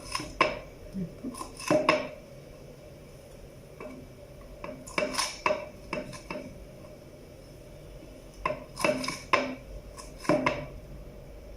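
Knife cutting peeled lemons into small pieces, its blade clicking against the cutting surface in three short clusters of sharp taps with quiet stretches between.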